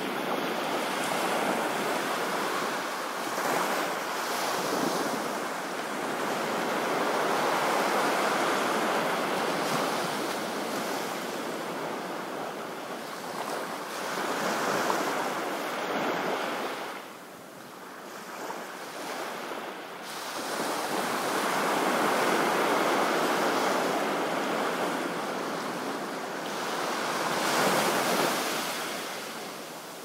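Small waves breaking and washing up a flat sandy beach: a steady rush of surf that swells and eases every few seconds, falling away briefly a little past halfway before building again.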